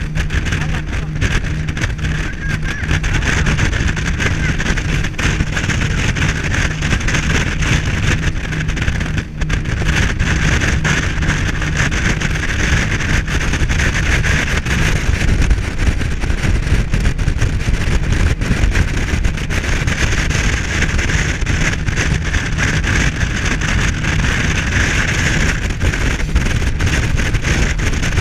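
Rigid inflatable boat under way on the fjord: its engine runs steadily while water rushes along the hull and wind buffets the microphone.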